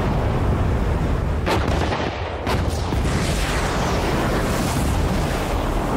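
Concrete cooling towers collapsing after their demolition charges are fired: a continuous deep rumble of falling masonry, with two sharp cracks about one and a half and two and a half seconds in.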